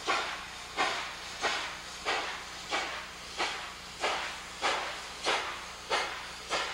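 Exhaust of the 4-8-4 steam locomotive 614 chuffing in an even beat, about one and a half chuffs a second: the engine is working under steam. Each chuff starts sharply and fades into hiss.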